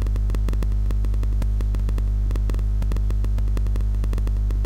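Steady electrical mains hum and buzz in the recording, with a fast faint crackle of ticks over it.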